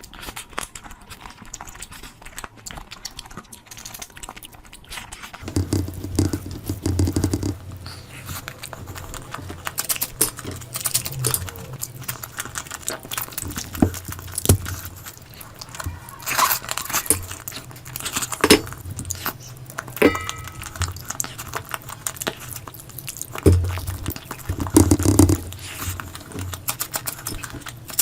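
Eating sounds: a person chewing and smacking mouthfuls of curry, with many small irregular wet clicks and heavier bursts now and then.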